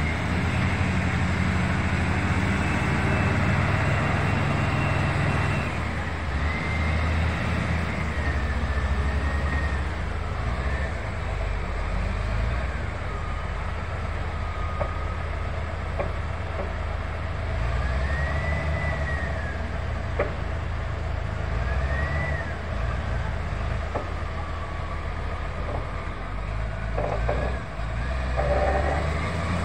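Diesel engines of wheel loaders and an excavator at work: a steady heavy low drone with a whine that rises and falls as the machines rev. There is a single sharp knock about two-thirds of the way through.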